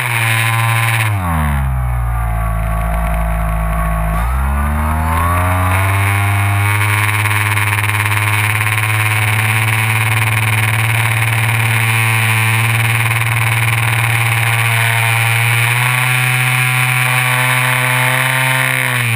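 Electric motor and propeller of a FunCub RC plane, heard from a camera on board. Its pitch drops about a second in, stays low for a few seconds, climbs back around five seconds in and holds steady, then falls again at the very end, over a steady hiss.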